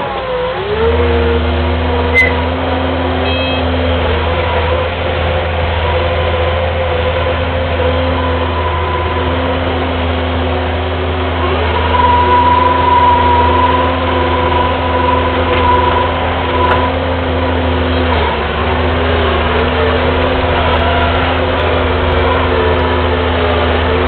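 Kubota skid steer's diesel engine running steadily at working revs, heard from the operator's seat. Its pitch dips briefly near the start and again late on, and a higher whine rises over it for a few seconds around the middle.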